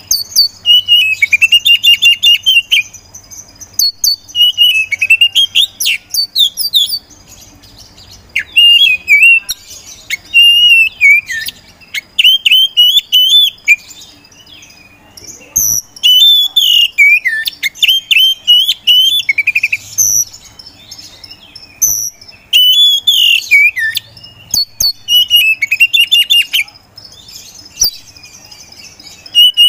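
Oriental magpie-robin (kacer poci) singing loud, varied phrases of sweet whistles and rapid trills, in bursts of one to two seconds with short pauses between them. A thin steady high tone sounds behind the song in parts of the first half.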